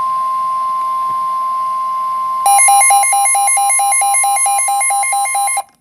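Weather radio warning alarm: a steady single tone of about 1050 Hz. About two and a half seconds in, a louder, rapid electronic beeping joins over it at about four to five beeps a second, and both cut off together near the end.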